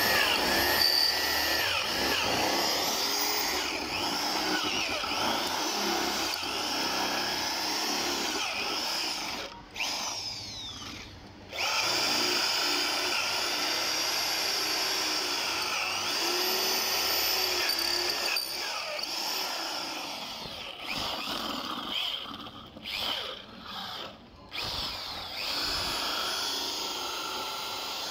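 Electric hand drill boring through the lock of a motorcycle's locking fuel cap, its bit grinding into the metal, done because the key was lost. The drill stops for about two seconds a third of the way in, and starts and stops several times in short bursts near the end.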